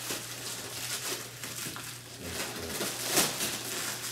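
Heavy plastic wrapping around a vacuum-packed memory foam mattress crinkling and rustling as it is pulled and handled, with a sharper, louder rustle about three seconds in.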